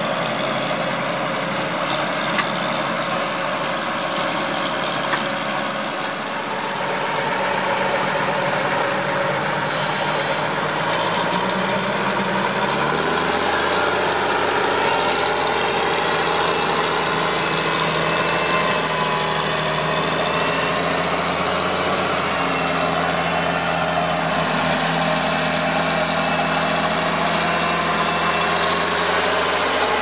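Massey Ferguson 1200's Perkins six-cylinder diesel running steadily under load while pulling a four-furrow plough. Its note rises a little about twelve seconds in and then holds.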